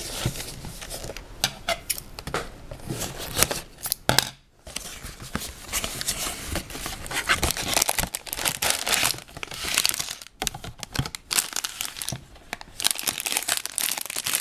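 A cardboard Lego set box being torn open and the plastic parts bags inside crinkling as they are handled: continuous rustling and tearing with small crackles, a brief pause about four seconds in.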